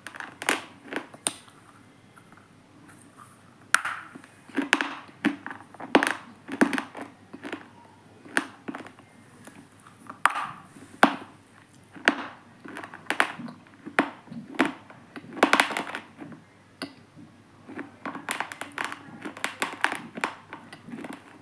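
Irregular crunches and crackles as unshaped lumps of stone are crushed and crumble, some crunches single, others coming in quick clusters.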